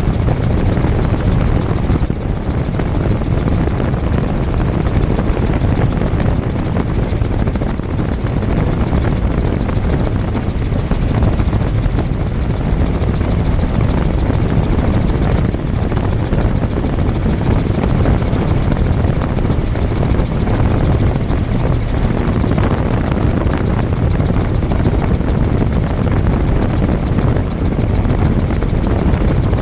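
Tour helicopter in flight: steady, loud rotor and engine noise with a heavy low rumble, unchanging throughout.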